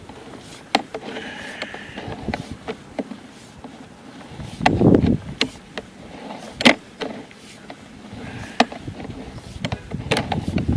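Sewer inspection camera's push cable being fed into the line: irregular clicks, knocks and rubbing, with heavier thumps about halfway through and again near the end.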